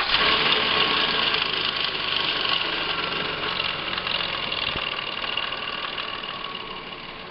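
Nissan Murano's VQ35 3.5-litre V6 running just after a start, knocking; it is loudest at first and settles gradually quieter. The knock is heavy enough that the owner jokes it will break out of the engine.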